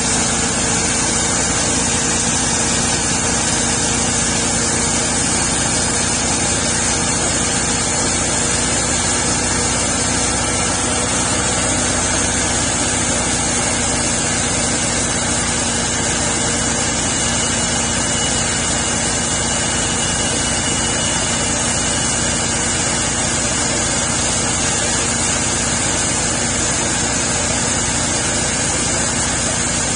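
Homemade sawmill's small gasoline engine running steadily at a constant speed while the mill cuts a spalted maple log.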